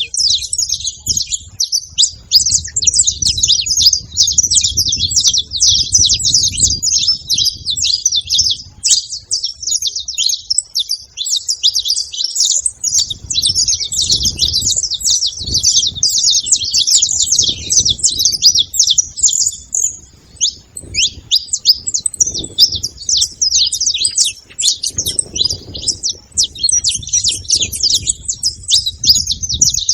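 Several saffron finches chirping and singing together in a dense, continuous stream of rapid high chirps.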